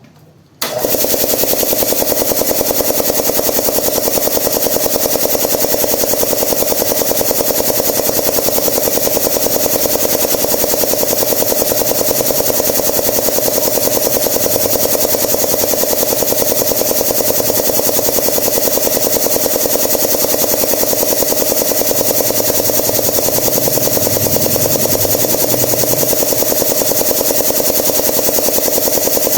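Zacchi piston air compressor switching on about half a second in and then running with a loud, steady, rapid clatter.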